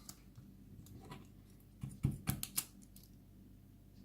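Small metal parts of a pin-tumbler lock being handled as it is taken apart: a few sharp clicks and taps, bunched about two seconds in, over a faint steady hum.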